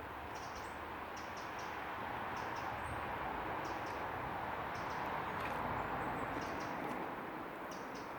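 River water flowing steadily, with short high bird chirps repeating in quick runs over it.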